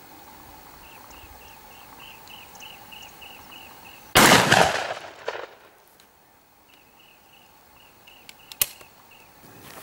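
A Miroku MK70 Sporter 12-gauge over-and-under shotgun fires a single shot of No. 4 shot through a cylinder choke, about four seconds in; the report dies away over about a second.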